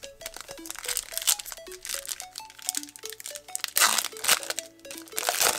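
Foil booster-pack wrapper crinkling and rustling as hands pull it open, in bursts, the loudest about four seconds in and near the end, over light background music of short plucked notes.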